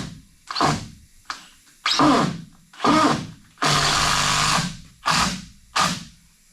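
Power drill running in about six short bursts, with one longer steady run of about a second near the middle.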